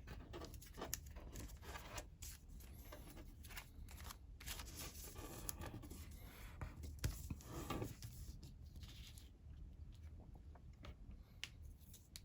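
Colored origami paper being folded and creased by hand: irregular crinkling and rustling with sharp crackles, busier in the first two-thirds and sparser toward the end.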